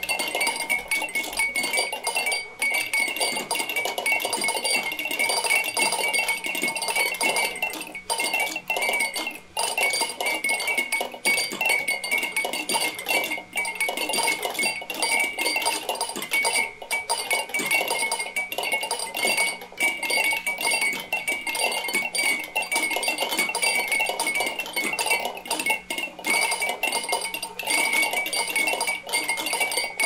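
A large crowd of drinking-bird toys tipping and bobbing at once: a dense, continuous clinking and tapping with steady ringing tones behind it, never pausing.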